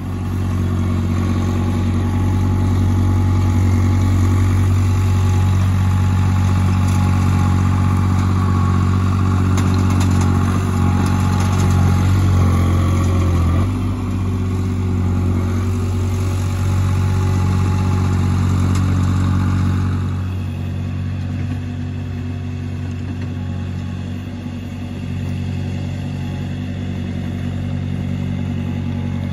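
Engine of a Vermeer CTX100 stand-on mini track loader running steadily as it is driven over dirt. The sound changes abruptly about halfway through and grows quieter about two-thirds of the way through.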